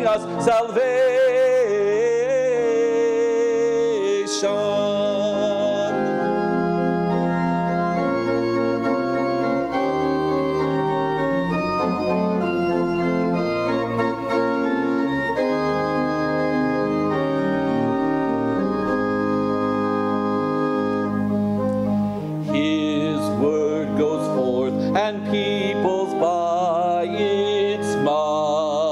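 Pipe or electronic organ accompanying a solo singer who sings with a wide vibrato. The voice stops a few seconds in while the organ holds sustained chords alone, then the voice comes back in about three-quarters of the way through.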